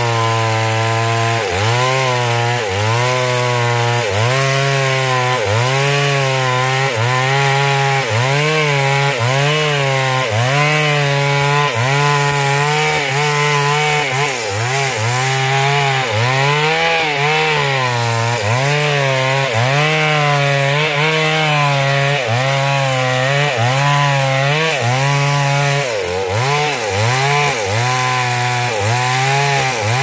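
Two-stroke chainsaw at full throttle cutting through the trunk of a standing tree, its engine pitch sagging and recovering roughly once a second as the chain bites into the wood and eases off.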